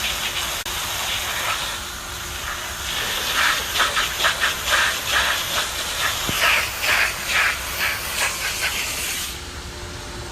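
Water spraying out under pressure with a steady hiss, surging about two or three times a second from about three seconds in, and cutting off sharply near the end.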